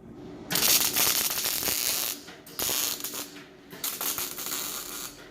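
Mechanical ratcheting clicks, in several bursts of about one to one and a half seconds each with short pauses between.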